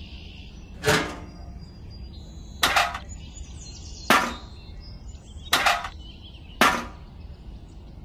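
Five sharp knocks, each with a short ringing tail, spaced about one to two seconds apart.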